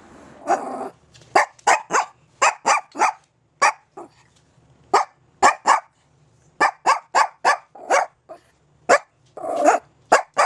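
Chihuahua barking: about twenty short, sharp yaps in quick bursts of several, a few tenths of a second apart, with brief pauses between bursts.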